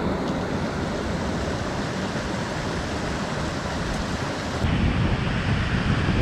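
Steady rush of glacial meltwater mixed with wind across the microphone. About four and a half seconds in the noise turns deeper and gustier, the wind buffeting the microphone.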